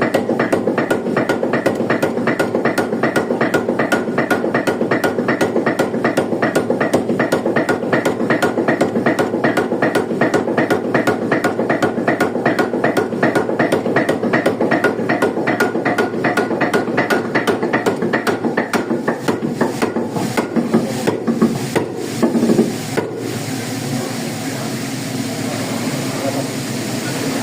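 Water-powered trip hammer striking in a fast, even rhythm of about four to five blows a second. Near the end the blows turn irregular and stop, leaving a steady rushing noise.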